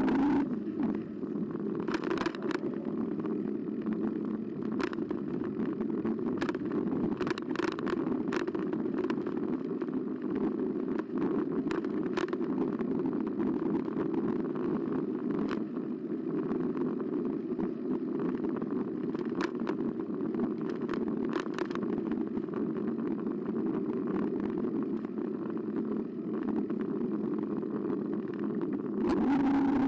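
Carbo X eBike riding along, heard from a camera mounted on the bike: a steady rumble of tyres, motor and wind, with scattered sharp clicks and rattles from the bike over the path.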